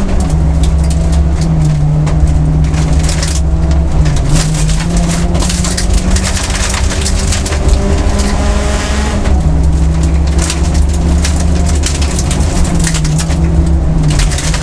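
Car engine running steadily, heard from inside the cabin, over a constant crunch and rattle of gravel under the tyres on a loose gravel road. The engine note drops slightly about nine seconds in.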